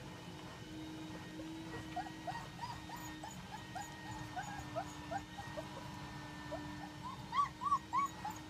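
A litter of Caucasian Ovcharka puppies whimpering and yipping, with short high squeaks coming several a second from about two seconds in and three louder yelps near the end.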